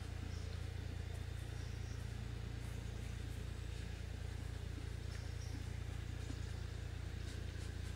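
A steady low rumble, even throughout, with a few faint short chirps and ticks above it.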